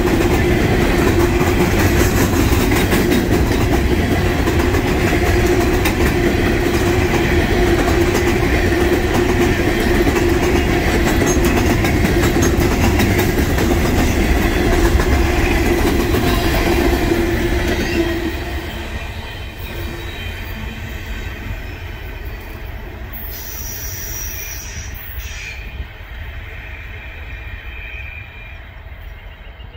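Herzog ballast hopper cars rolling past at close range, steel wheels running on the rails with a loud, steady rumble and a held tone under it. About 18 seconds in the last car goes by and the sound drops, then fades as the train moves off around the curve.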